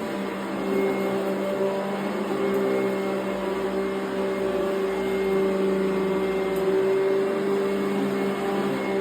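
1992 Eureka upright vacuum cleaner running steadily as it vacuums dry oatmeal off carpet, its motor giving a constant hum.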